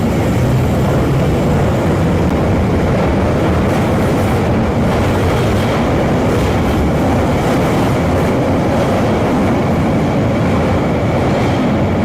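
London Underground 1972 Stock Bakerloo line train running on the rails, a loud, steady rumbling and rattling run of an older DC-motored train, with a low hum in the first couple of seconds.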